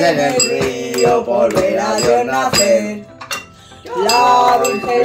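Music with a wavering melody and a regular beat, dropping away briefly about three seconds in, with a light clink of dishes and cutlery.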